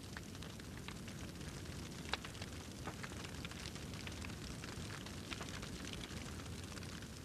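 Scattered crackles and clicks over a steady low rumble, with one sharper click about two seconds in.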